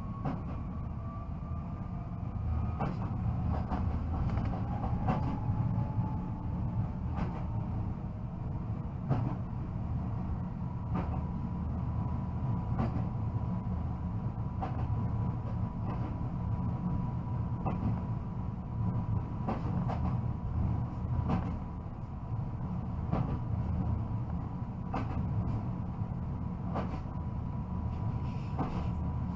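Newag Impuls electric multiple unit heard from the driver's cab: a steady low rumble of wheels on rail, with the traction drive's whine rising in pitch as the train picks up speed and then holding steady. Sharp clicks come roughly every two seconds as the wheels cross rail joints.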